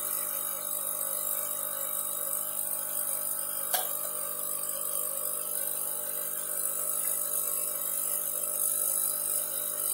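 Background music with a plucked-string instrument; a single sharp click a little under four seconds in.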